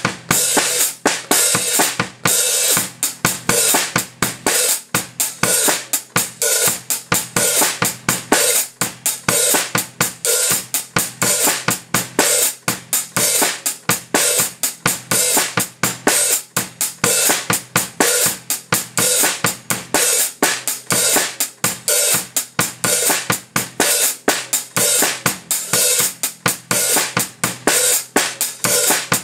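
Drum kit playing a steady groove without a break: a fast, even hi-hat or cymbal pattern over written bass drum and snare figures.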